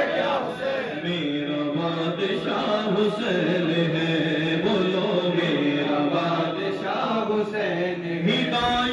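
A man's voice singing a devotional chant through a microphone, holding long notes that bend and waver.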